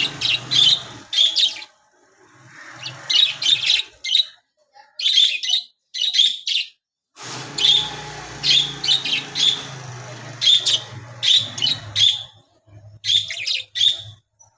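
Pet budgerigars chirping and chattering: runs of quick, high, short calls broken by brief pauses.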